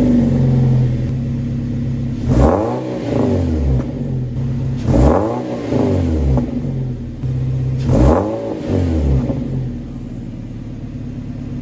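Third-generation Perodua Myvi's four-cylinder engine idling through an aftermarket exhaust, revved three times about every two and a half to three seconds, each rev climbing and dropping back to idle within about a second.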